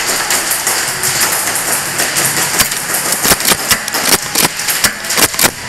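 Airsoft gunfire in close quarters, with BBs clattering against plywood walls: a dense, rain-like pattering with many sharp clicks that grows thicker through the second half.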